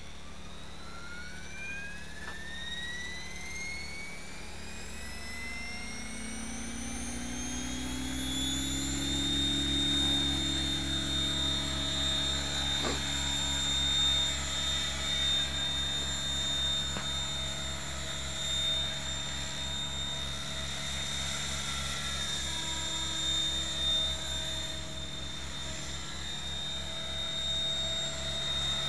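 Electric Mikado Logo 600 RC helicopter spooling up: a high motor-and-gear whine rises steadily in pitch over the first nine seconds or so, then holds steady at head speed over a low, pulsing beat of the rotor blades as the helicopter lifts off and flies.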